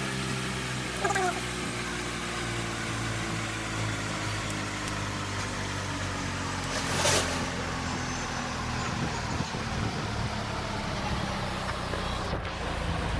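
A motor running steadily, its hum slowly falling in pitch, with a short chirp about a second in and a brief burst of hiss about seven seconds in.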